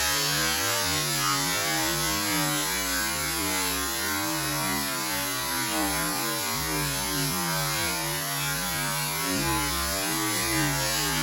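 Waterfall's steady rush of falling water, an even unbroken noise with a deep low hum under it.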